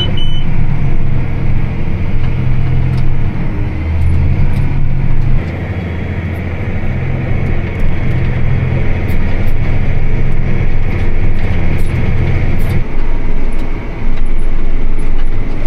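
Tractor engine running steadily while driving a round baler through a windrow of hay. The low engine hum changes and drops away about thirteen seconds in.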